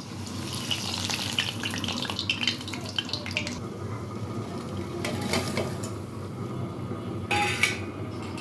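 Urad dal fritters frying in hot oil, sizzling and crackling, loudest in the first few seconds. A metal utensil clicks and clatters against the pan a few times near the end.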